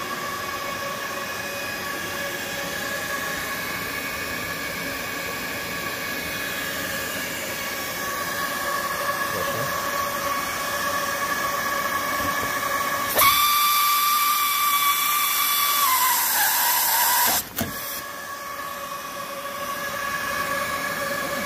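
Hot-air seam sealing machine running: a steady hiss of blown air with a high motor whine. About 13 s in the hiss turns louder and brighter for about four seconds, its pitch sliding down just before it cuts off, then the steady blower sound returns.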